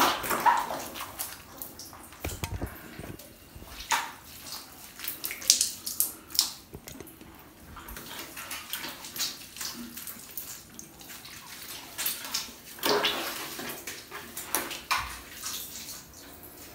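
Hands washing a wet small dog in a bathtub: irregular splashes of water and rubbing of soaked fur.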